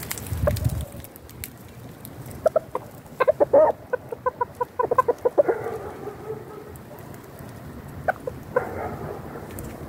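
Chickens clucking: a quick run of short clucks starting about two and a half seconds in, a drawn-out call after it, and a few more calls near the end. A brief low rumble at the very start.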